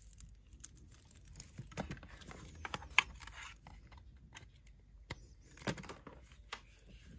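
Handling noise: small clicks, taps and rustles as a power cord is moved and a plastic-cased LED tester is picked up and turned over in the hand, with one sharper click about three seconds in.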